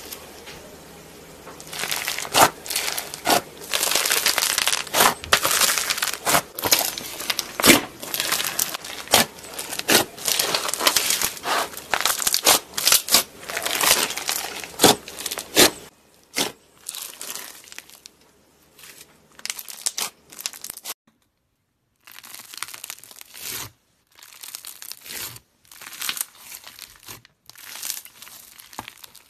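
Bead-filled crunchy slime squeezed and pressed by hand: dense crackling and popping of the beads, with many sharp pops. The crackling gets fainter about halfway through and breaks off briefly, then carries on softer.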